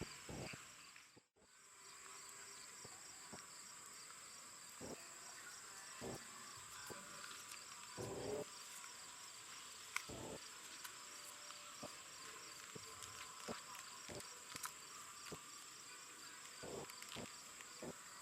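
Faint chorus of insects, likely crickets: a steady high trill with a second, evenly pulsing chirp beneath it. The sound cuts out for a moment about a second in, and faint distant voices come and go.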